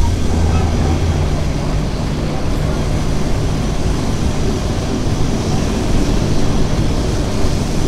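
Lisbon Remodelado electric tram in motion, heard from inside the car: a steady low hum over the even rolling noise of its wheels on the street rails.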